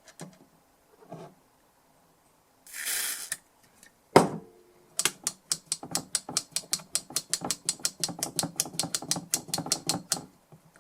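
A short hiss of contact-cleaner spray, a single sharp click, then a Millenium DI box switch clicked rapidly back and forth, about six clicks a second for some five seconds, working the cleaner into its dirty contacts.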